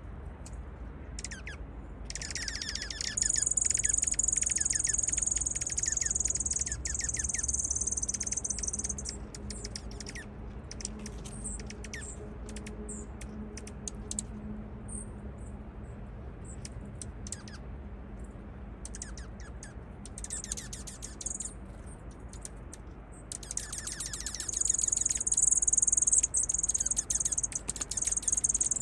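Songbirds chirping: high-pitched, fast runs of chirps and trills in two long bouts, one starting a couple of seconds in and another near the end, with scattered single chirps in between.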